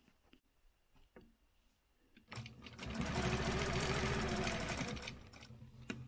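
Quilting machine stitching a ruler-guided line. After a few faint clicks in near silence, the machine starts about two seconds in, runs steadily, and eases off near the end.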